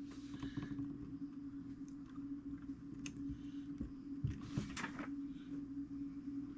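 Light handling sounds of brass fusee wire and clock parts being worked by hand: scattered small clicks, one sharper tick about three seconds in, and a brief rustle a little past four seconds. A steady low hum runs underneath.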